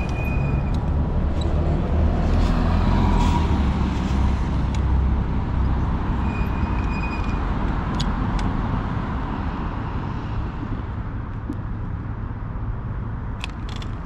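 Riding noise on a fat-tire e-bike: wind rumbling on the microphone and road noise from the tires. It grows louder a couple of seconds in and eases off in the last few seconds. A brief high whine comes right at the start and again about six seconds in, and a few sharp clicks sound about eight seconds in and near the end.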